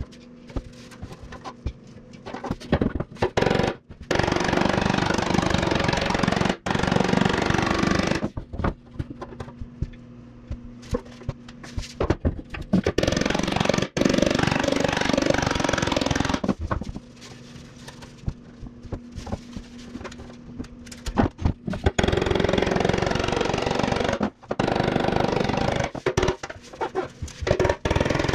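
Rapid metal hammering on a sheet-steel motorcycle fuel tank as knee dents are shaped, in four bursts of a few seconds each. Between the bursts there is a steady low hum and scattered single knocks.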